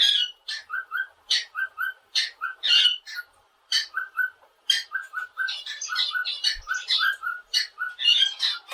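Cockatiel whistling and chirping: a fast run of short notes, many of them in quick pairs.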